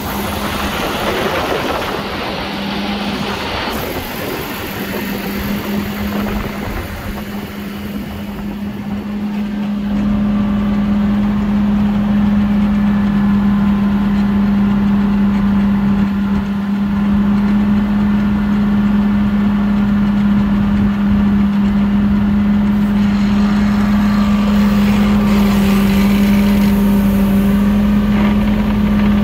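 2011 Case IH Magnum 340 tractor's six-cylinder diesel engine idling, a steady hum with one strong constant pitch; it grows louder about ten seconds in and then holds steady.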